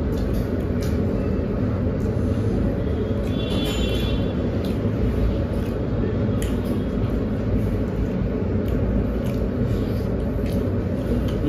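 A steady low rumble, with a few faint small clicks over it.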